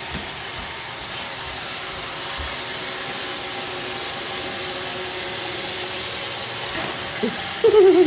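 Roomba robot vacuum running: a steady whir of its motors and brushes with a faint constant hum. Near the end a person's voice breaks in, louder than the vacuum.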